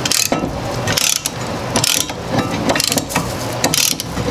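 Ratchet wrench clicking in strokes about once a second as it turns the screw of a brake caliper press, pushing the piston back into the brake caliper to make room for new pads.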